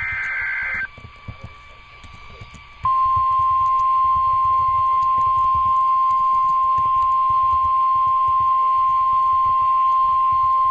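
Emergency Alert System SAME digital data burst, a short harsh buzzing warble, ending about a second in. About three seconds in, the NOAA Weather Radio 1050 Hz warning alarm starts: one loud, steady, single-pitched tone announcing a new warning.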